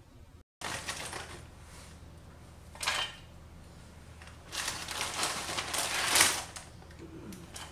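Rustling and light clattering handling noises. There is a short sharp clatter about three seconds in, then a longer stretch of rustling that peaks near the end.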